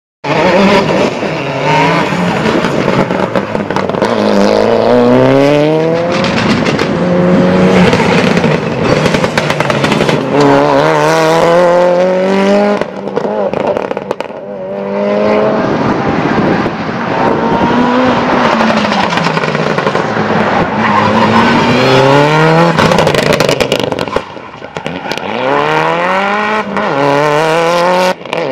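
Mitsubishi Lancer's engine revving hard again and again, its pitch climbing as it accelerates and falling back as it lifts off between the cones.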